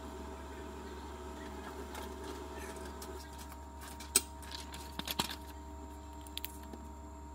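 Sheets of paper being handled: a sharp click about four seconds in, then a quick cluster of clicks and rustles and two small clicks later, over a steady electrical hum. A faint mechanical whirring runs through the first three seconds.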